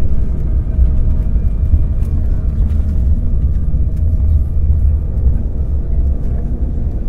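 Cabin sound of an Embraer 195 on its landing rollout just after touchdown, spoilers raised: a loud, steady low rumble.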